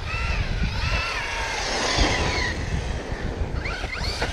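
Arrma Kraton V4 6S RC monster truck's brushless motor whining as it drives on asphalt, its pitch rising and falling in arches with the throttle, with a few sharp rises near the end, over a steady low rumble.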